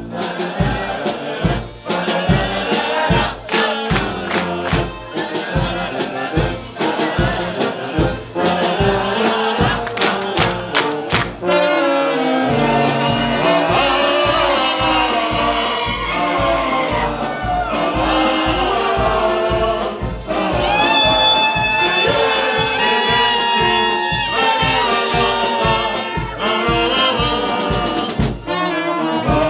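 Small street brass band playing a lively tune: trumpets and lower brass horns over a snare drum and bass drum keeping a steady beat, which drops out briefly about twelve seconds in and then picks up again.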